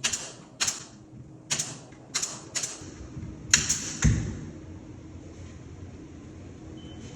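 A staple gun firing staples into drywall corner bead: six sharp shots at uneven intervals over the first three and a half seconds, followed by a low thud about four seconds in.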